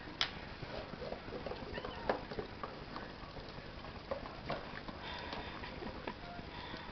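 A St Bernard moving on a tiled floor and nosing at a small bowl: scattered, irregular light clicks and taps, with no steady rhythm.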